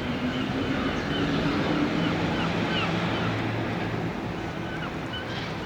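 Outdoor background noise with a low steady hum, and short chirping calls repeating about twice a second.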